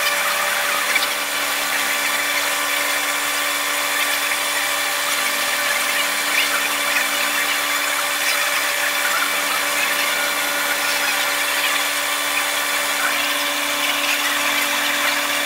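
Airbus A330-200's jet engines whining steadily at taxi, heard from inside the passenger cabin: several held tones over a hiss, with a faint slow wavering in pitch.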